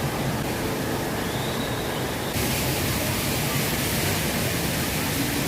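Steady rush of falling water from the Jewel Changi Rain Vortex, an indoor waterfall pouring down into its basin. The hiss turns brighter and a little louder about two seconds in.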